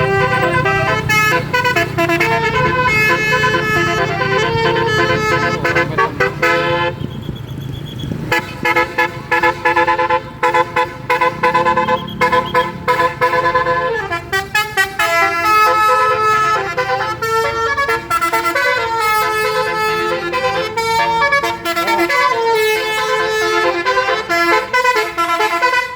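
Bus telolet basuri horn playing a melody: quick runs of tones stepping up and down, with a short break about seven seconds in. A low engine rumble runs underneath.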